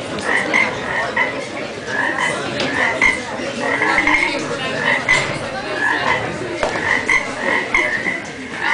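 Frogs croaking: a steady run of short calls, about two or three a second.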